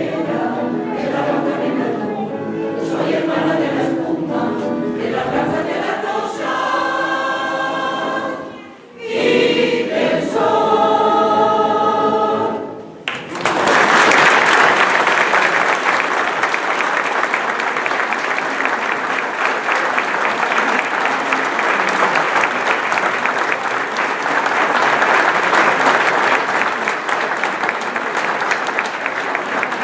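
Choir singing the final phrases of a song, with a short break and then a long held closing chord that cuts off a little before halfway. Audience applause follows, steady and dense.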